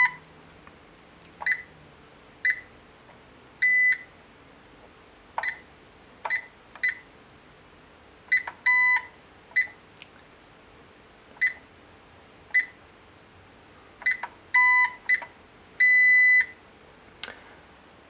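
IDS X64 alarm keypad beeping as its keys are pressed: a string of short high beeps, spaced irregularly about a second apart, with a few longer held beeps, two of them with a lower tone under the high one.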